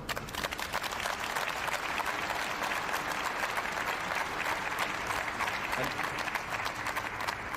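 Crowd applauding, a dense patter of clapping that starts suddenly and eases off near the end.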